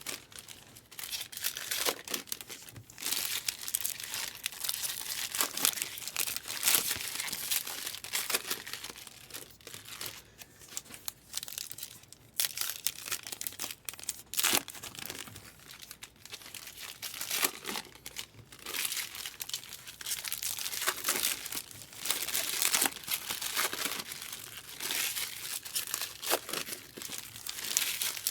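Baseball card packs being torn open and their wrappers crinkled, with cards shuffled by hand: irregular crackling and rustling throughout.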